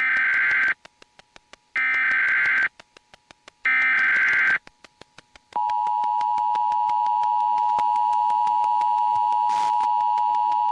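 Emergency Alert System header: three one-second bursts of screeching digital data tones, separated by short gaps filled with rapid clicking, about five a second. About five and a half seconds in, the EAS two-tone attention signal begins and holds steady.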